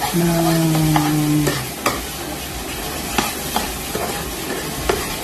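Metal slotted spatula stirring and scraping a thick sardine sauce in a nonstick frying pan while it sizzles, with a few sharp clicks of the spatula against the pan.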